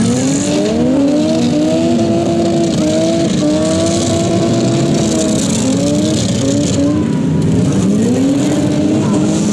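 Several demolition derby cars' engines running and revving at once, their pitches rising and falling in overlapping waves.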